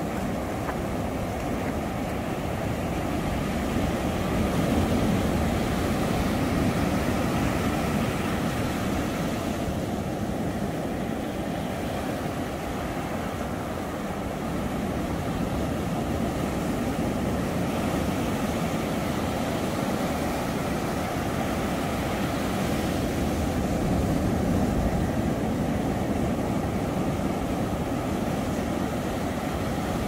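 Rough sea surf, a continuous heavy wash of breaking waves that slowly swells and eases.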